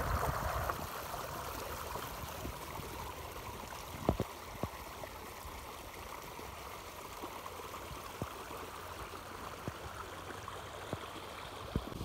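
Steady rush of running water from a monsoon stream, with a few sharp clicks scattered through it, the loudest about four seconds in.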